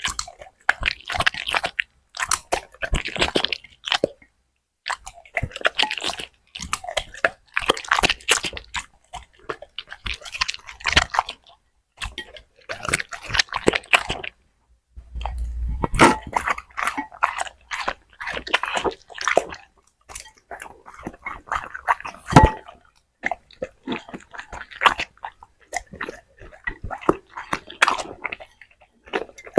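A dog chewing and crunching food in repeated bursts of crunching, with short pauses between mouthfuls.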